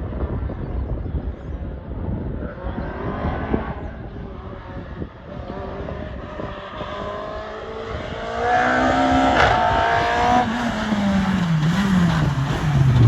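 Renault Clio 172 rally car's four-cylinder engine revving as the car accelerates, its pitch rising and getting much louder about eight seconds in. Near the end the pitch falls away steeply.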